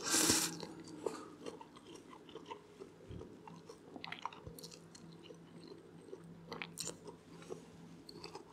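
A person chewing a mouthful of stir-fried Singapore rice noodles: quiet chewing with small scattered clicks, after a short louder sound at the very start.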